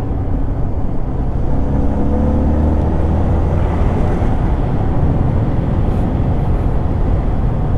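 Motorcycle being ridden on an asphalt road: a steady low rush of wind and road noise, with the engine's hum rising a little about two seconds in.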